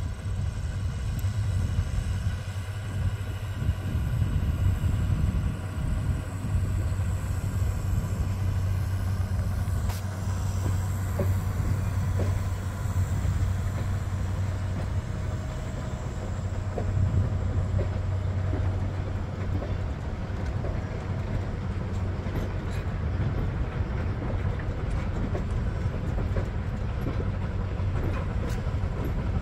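Passenger train hauled by a Shay geared steam locomotive rolling slowly past: a steady low rumble of the coaches on the rails, with faint wheel clicks.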